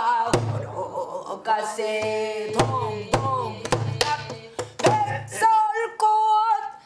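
Woman singing a Korean folk song in full chest voice, accompanying herself on a buk barrel drum struck with a stick, with a sharp drum stroke every second or so.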